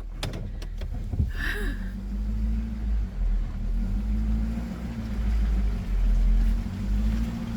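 Vehicle engine running and tyres rumbling at low speed, heard from inside the cabin: a steady low rumble with an even engine hum, and a few light clicks in the first second.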